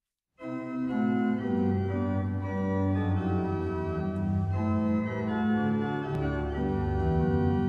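Church organ playing the introduction to a choir song: sustained, connected chords that change from one to the next, starting about half a second in.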